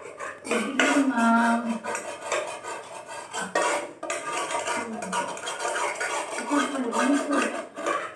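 An aluminium cooking pot being scrubbed and handled by hand at a sink: repeated scraping, knocks and clatter of the pot against a metal plate and utensils.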